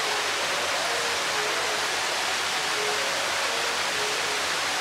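Steady rush of falling water, with a few faint short held tones in the background.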